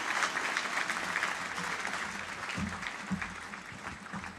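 Large crowd applauding, the clapping gradually dying away, with a few low thuds about two and a half to three seconds in.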